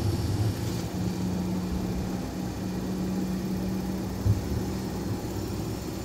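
Inside a moving tram: the low rumble of the car running on its rails, with a steady low hum that breaks off briefly a little past two seconds and fades near the end, and a single knock about four seconds in.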